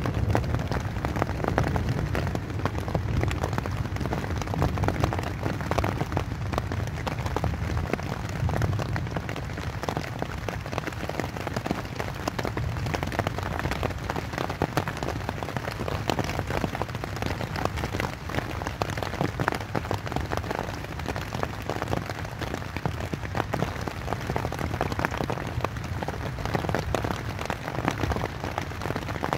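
Rain falling on a tent's fabric from inside the tent: a dense, steady patter of drops with a low drumming underneath.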